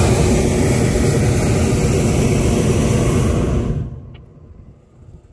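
Hot-air balloon's propane burner firing overhead in one loud blast of about four seconds, starting suddenly and cutting off.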